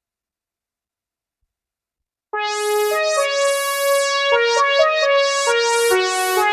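Silence for about two seconds, then a Roland System-8 synthesizer playing a Jupiter-8 preset: a bright keyboard tone playing a phrase of several notes.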